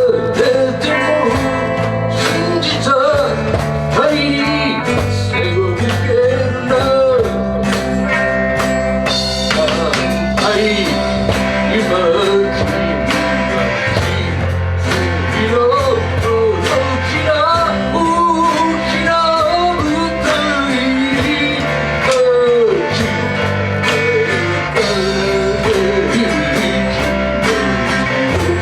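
An amateur band playing a rock ballad: a singer's voice over guitar, bass and a steady drum beat.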